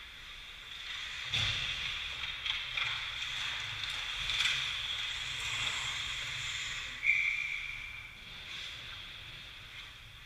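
Ice hockey play near the net: skates scraping the ice and sticks and puck knocking, a few sharp knocks standing out. About two-thirds of the way through, a short, loud referee's whistle blast stops play.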